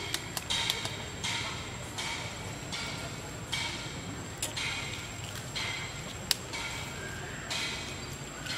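Forest ambience: a steady high whine with repeated half-second pulses of high chirping, about once a second, and a few sharp clicks.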